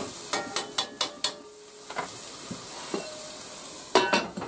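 Diced onions sizzling in olive oil in a cast-iron skillet while a plastic spatula stirs them, knocking against the pan about five times in the first second and a half and a few more times later. About four seconds in, a glass lid is set on the skillet with a ringing clatter, the loudest sound.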